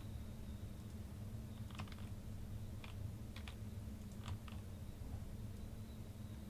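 A handful of scattered clicks from a computer keyboard and mouse as a list is selected and copied between a web page and a spreadsheet, over a steady low hum.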